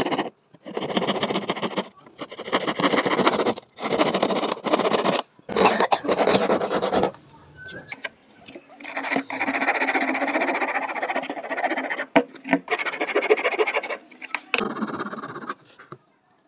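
Hand saw cutting through a thin wooden board, heard in short rasping spells with abrupt breaks between them. About halfway through, a rasp file scrapes back and forth along the board's edge for several seconds, smoothing the cut outline of a paddle.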